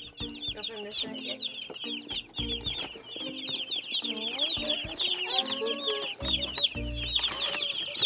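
A box of baby meat chicks peeping constantly, many rapid high chirps overlapping one another.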